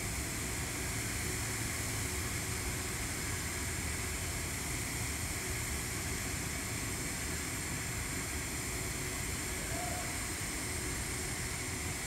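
TIG welding arc on carbon-steel pipe, running as a steady, unbroken hiss during the cap pass.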